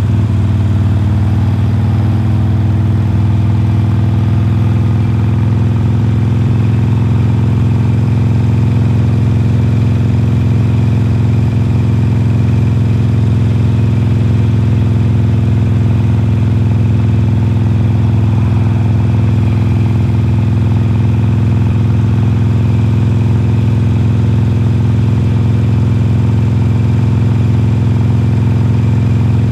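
2020 Harley-Davidson Forty-Eight's air-cooled 1200 cc V-twin running at a steady cruising speed through Khrome Werks slip-on mufflers, heard from the rider's seat.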